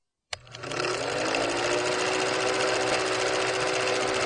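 Film projector running: a sharp click, then a steady, fast mechanical clatter with a hum that rises a little in pitch over the first second as it comes up to speed.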